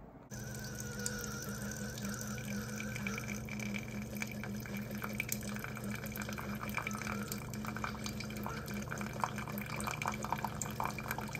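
Single-serve pod coffee maker brewing: the pump hums steadily while a thin stream of coffee pours into a ceramic mug with light splashing and crackling drips. A faint high whine fades out about three and a half seconds in.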